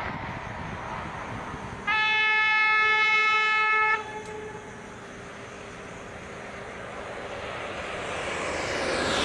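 Rushing noise of a high-speed train, broken by one loud, steady two-second blast of its horn about two seconds in; afterwards the rush grows louder as the train approaches.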